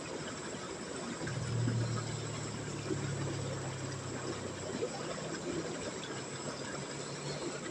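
Steady rush of river water, with a low droning hum that comes in about a second in and fades after a few seconds.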